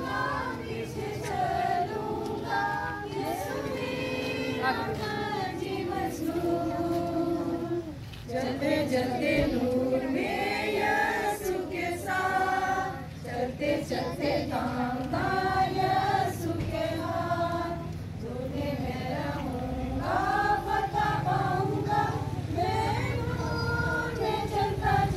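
A group of women and children singing a hymn together, with a steady low hum underneath.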